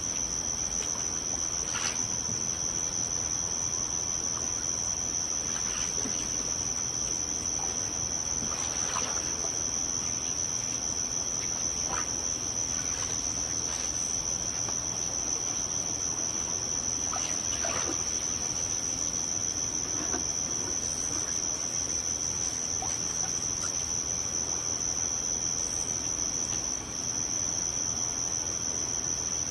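A steady high-pitched tone runs throughout, with faint soft water sounds at scattered moments.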